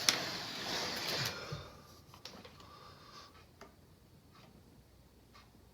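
A sharp click, then about a second of scraping, then a few scattered faint taps: small hand tools and a workpiece being handled on a workbench.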